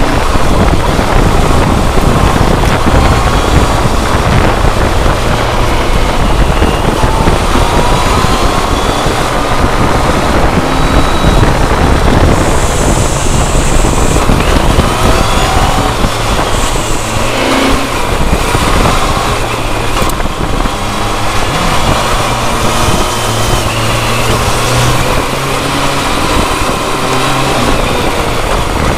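Inline-four sport motorcycle riding at speed, recorded on board: a steady rush of wind and road noise, with the engine note faintly rising and falling as the rider works the throttle through the bends.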